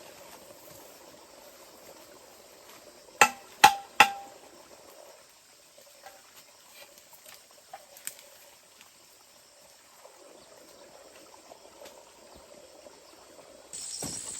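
Three sharp knocks in quick succession, about half a second apart, each with a brief ringing tone. Near the end a steady high insect drone sets in.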